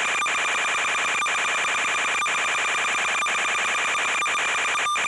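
Steady electronic buzz and whine from the FPV video link's audio channel, with a faint click about once a second. The quadcopter's motors are stopped.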